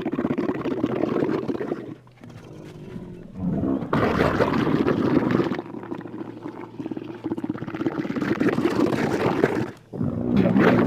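Camel's wet gargle: rough, gurgling vocalizing in long stretches, with a quieter, lower moan about two seconds in and a brief break near the end.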